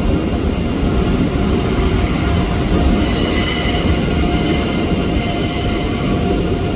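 Train moving along the platform with its wheels squealing on the rails: a loud steady rumble with several high squealing tones on top, strongest around the middle.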